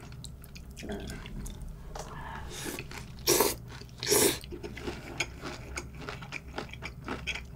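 Wet slurping of a mouthful of cold raw-fish soup (mulhoe), two loud slurps about three and four seconds in. Then close-up chewing with many small, wet clicking crunches.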